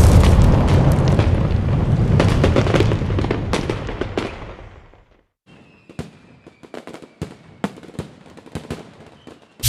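Explosion sound effects: a heavy, rumbling blast that dies away over about four seconds, followed by scattered small crackles and pops.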